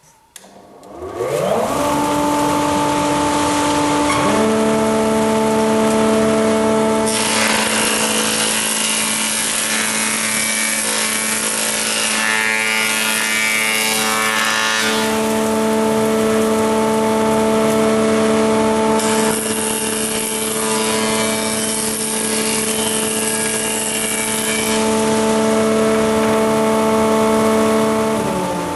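A combination jointer-planer spins up to speed with a rising whine, then hums steadily. A wooden board is fed over the spinning cutter block twice, and each pass adds a loud cutting rush over the whine as the face is planed flat. The machine starts to run down right at the end.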